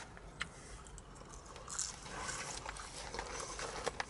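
Quiet chewing of a mouthful of battered fried whiting, with scattered soft mouth clicks.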